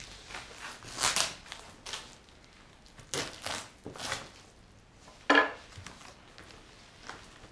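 Rustling and crinkling of a shipping package and its packing material being pulled open by hand, in several short rustles. About five seconds in comes the loudest sound, a sharp clack with a brief ring, as a metal knife is set down on the tabletop.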